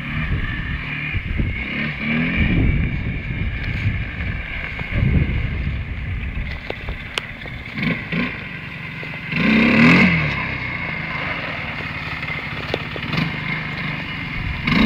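Sport quad bike (ATV) engine running and revving under changing throttle, with repeated rises and falls in pitch and a louder burst of revving about two-thirds of the way through.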